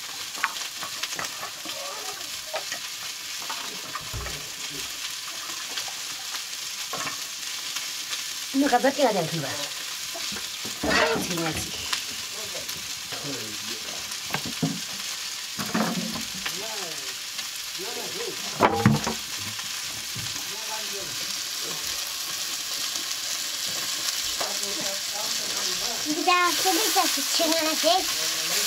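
Food frying and sizzling in a wok, with occasional clanks and scrapes of metal pots and utensils. The sizzling grows louder near the end.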